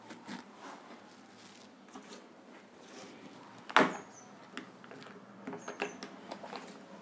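Plastic paint bottles handled and knocked against a table: one sharp knock about four seconds in, then a few lighter clicks.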